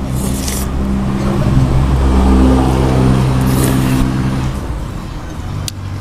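A road vehicle's engine passing close by, its low hum swelling and then fading over about four seconds. Noodles are slurped at the start and again about three and a half seconds in.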